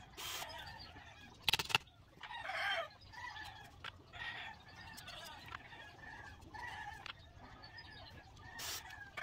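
Chickens clucking and calling again and again, with a couple of sharp knocks, the loudest sounds, about one and a half seconds in.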